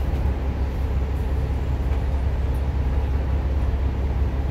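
Bus engine idling while the bus stands still, heard from inside the passenger cabin as a steady low hum.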